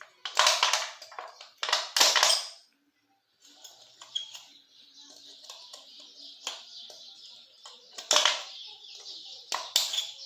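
Thin aluminium beer can crinkling and snapping as it is handled and worked by hand, in a few sharp loud bursts with scattered small clicks between them and a faint steady hiss.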